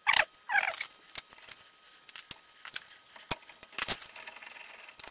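Metal brake parts clinking and scraping as a worn front brake pad and the caliper bracket are handled, a run of short uneven clicks. A brief falling squeak comes under a second in.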